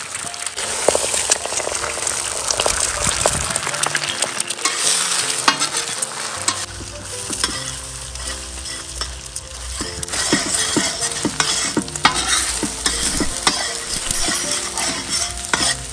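Eggs sizzling in hot oil on a wide steel griddle (tawa), with a metal spatula scraping and clicking on the pan as the eggs are broken up and stirred.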